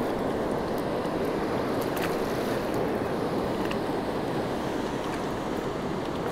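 Steady rush of a fast-flowing river, its current running over rocks and rapids, with a couple of faint ticks.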